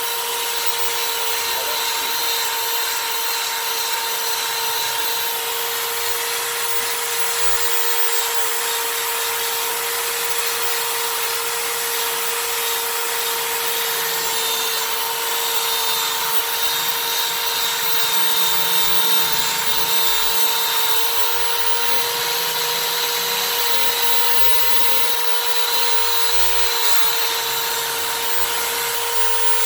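High-speed die grinder running continuously at constant speed: a steady high whine over an even grinding hiss, with no change in speed.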